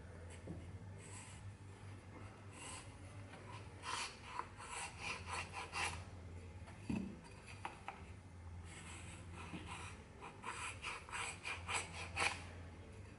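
Wooden marking gauge scoring a line along the edge of a cypress fingerboard blank, heard as quick, repeated scratching strokes. There are two runs, one starting about four seconds in and another about nine seconds in, with a single soft knock between them.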